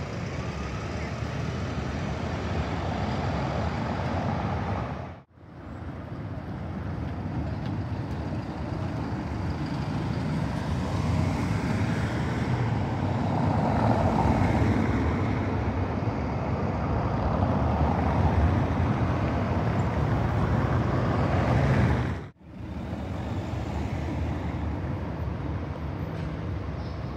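Buses and street traffic, with engine noise that builds toward the middle. The sound drops out abruptly twice, about five seconds in and again near the end, where separate clips are joined.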